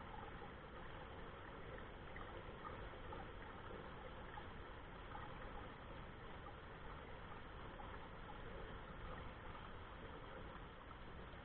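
Water running steadily in a stream, a faint even rushing.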